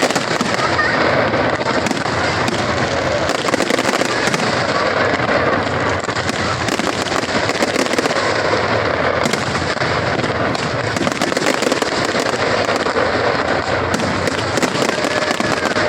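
Fireworks display: a dense, continuous crackle of many quick pops and bursts running together without a break.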